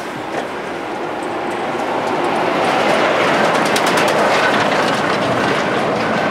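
A semi-trailer truck driving past close by. The tyre and engine noise swells to its loudest about halfway through, with some clattering from the trailer at the peak, then begins to ease off.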